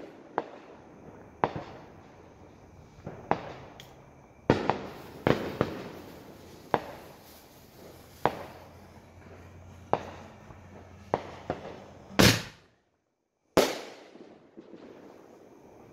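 Firework bangs: a dozen or so sharp reports at uneven intervals, each with a short echoing tail, over a faint hiss, as a mortar shell is fired from a homemade firework launcher tube. The loudest bang comes about twelve seconds in, after which the sound drops out for about a second.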